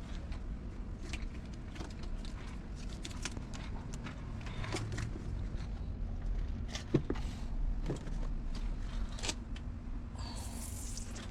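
Scattered clicks and knocks, the sharpest about seven seconds in, over a steady low rumble, with a short hiss near the end.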